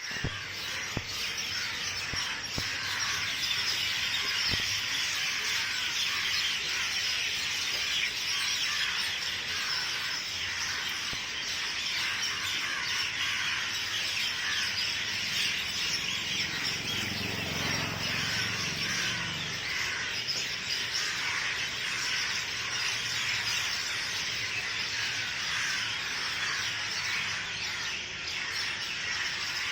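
A dense chorus of many birds chirping continuously together, the noisy evening gathering of a flock settling into a tree to roost. A low rumble swells and fades about halfway through.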